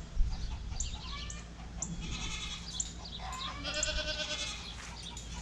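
Goats bleating several times, the longest call about three seconds in, with a sharp thump just after the start and a steady low rumble underneath.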